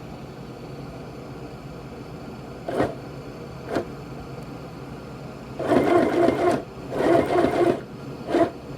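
Sunbeam electric sewing machine stitching in short runs on a first test run: two brief whirs, then two runs of about a second each, then a short one near the end.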